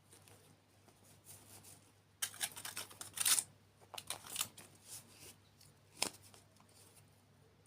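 Crinkling and rustling of a food wrapper being handled, in a dense spell of crackles lasting about two seconds, then a single sharp click about six seconds in.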